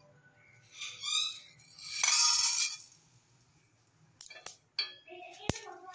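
Dry coriander seeds poured into an empty stainless-steel pan: a short rattling pour about two seconds in, followed by a few sharp clinks against the metal.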